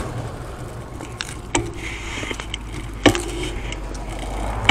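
Rattles and sharp clicks from a bicycle-mounted rear camera and light over a low rumble as the bike rolls along; three louder clicks stand out about one and a half, three and four and a half seconds in.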